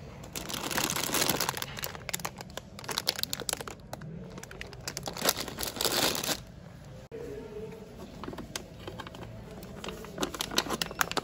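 Plastic bags of dried pasta crinkling as they are handled and pushed about on a shop shelf, dense and loudest over the first six seconds. Near the end a plastic pouch of salt rustles as it is taken off the shelf.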